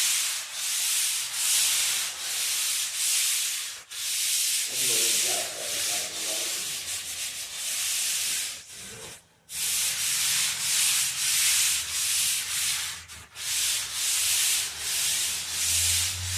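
Sanding sponge scrubbed back and forth over dried joint compound on a drywall ceiling: a rhythmic scratchy hiss at about two strokes a second, pausing briefly about nine seconds in.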